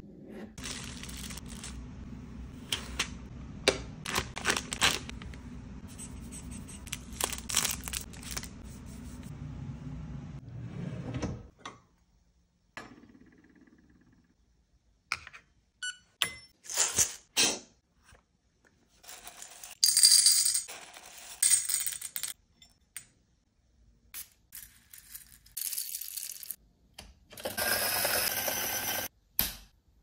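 Sculptor electric coffee grinder running steadily with crackling clicks for about eleven seconds, then stopping abruptly. Scattered metallic clinks and taps follow, with a louder stretch of rattling near the end.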